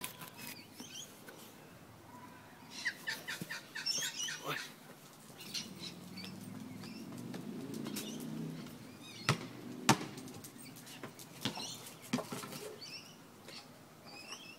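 Birds chirping and calling in short high notes. Two loud sharp knocks come about half a second apart just after the middle, with a few fainter clicks elsewhere, and a low rumble swells and fades in the middle.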